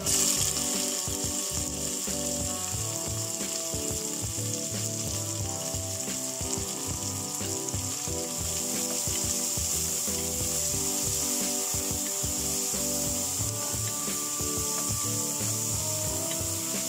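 Chopped onions and green chillies sizzling steadily as they fry in hot mustard oil, stirred now and then with a wooden spatula in the pot.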